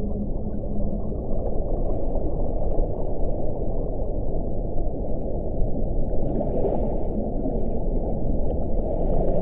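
Underwater whale-sound recording: a dense, muffled low rumbling wash, with a held low tone that ends about a second in.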